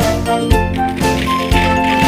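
Background music: bright, chiming melody notes over a steady beat.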